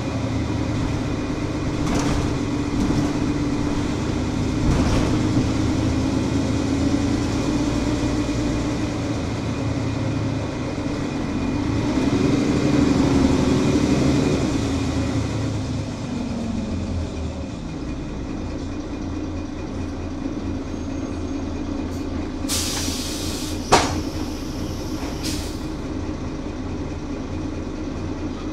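Mercedes-Benz Citaro Euro 5 bus's OM 457 hLA horizontal straight-six diesel running under way. The engine note climbs and grows louder about halfway through, then eases off. Near the end there is a burst of hiss, a sharp knock and a second short hiss.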